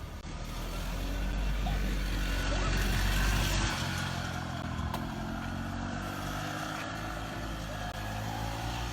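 1975 AMF/Harley-Davidson golf cart engine running. It gets louder over the first three seconds or so, then runs steadily.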